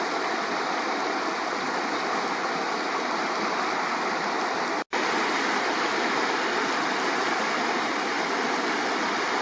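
The Clearwater River rushing: a steady hiss of fast-flowing water, broken by a split-second gap of silence about five seconds in.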